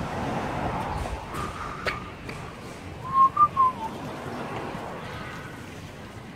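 Someone whistling a short phrase of three or four gliding notes about three seconds in, over steady street background noise.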